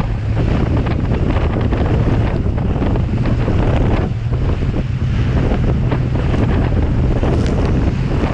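Waverunner engine running steadily under way, with heavy wind buffeting the microphone and irregular knocks and splashes of the hull running through choppy seas.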